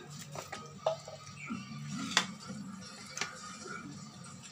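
Light taps and clinks of a shared meal eaten by hand off banana leaves, with three sharp clicks standing out over a low background murmur.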